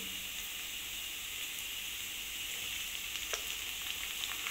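Chopped onions frying in hot oil in a kadhai: a steady sizzle, with one light click about three seconds in.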